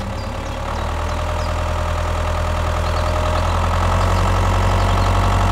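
Tractor engine running steadily, a low even engine sound that gets a little louder.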